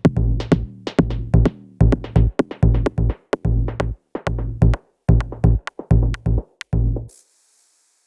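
Electronic music with a drum-machine beat and deep bass, which cuts off about seven seconds in, followed by a brief faint hiss.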